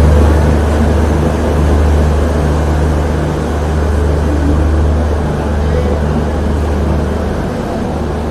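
Train running, a loud, steady low rumble with a constant hum.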